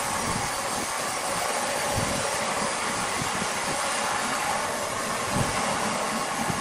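Horizontal band sawmill running steadily as its blade saws lengthwise through a giant log slab: a continuous hiss with a faint hum.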